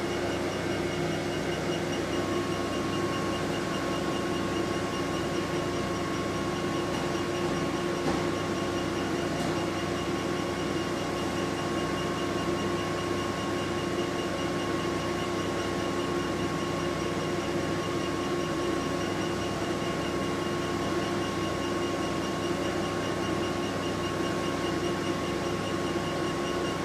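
Steady mechanical hum and whir with a few constant tones, from a diode laser hair-removal machine's cooling system running while its handpiece is glided over the skin. A thin, steady high tone joins about a second in.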